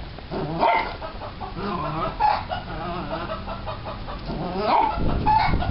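Rooster clucking and squawking in short repeated calls, agitated by a small dog lunging at it, with a louder, noisier scuffle near the end.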